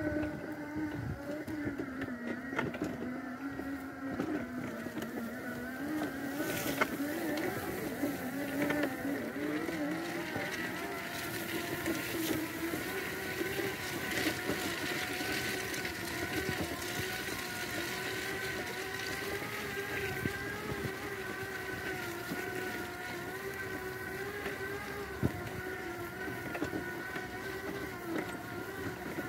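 Electric drive motors of a Magic Mobility Extreme X8 power wheelchair whining steadily as it drives over rough grass. The pitch sags and recovers in the first ten seconds, then holds level.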